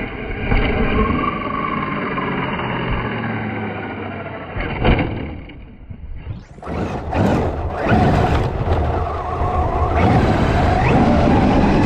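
Traxxas X-Maxx electric RC monster truck driving in snow, its motor and drivetrain running with tyre and wind noise. There is a short knock about five seconds in and a brief lull near six seconds.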